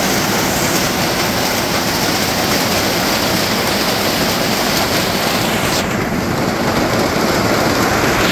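Heavy hailstorm: hailstones and rain pelting the ground in a loud, steady, dense din. The highest part of the hiss thins out from about six seconds in.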